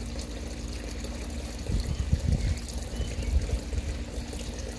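Steady low mechanical hum with water trickling, the sound of a running hydroponic system's pump and circulating water. Irregular low rumbling thumps come in from about two seconds in and are the loudest part.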